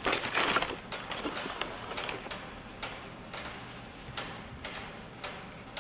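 Thin plastic bag crinkling briefly at the start as a new VCT solenoid is unwrapped. Then scattered light clicks and taps as the metal solenoids are handled over the workbench.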